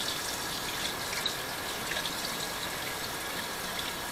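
Kitchen faucet running steadily into the sink.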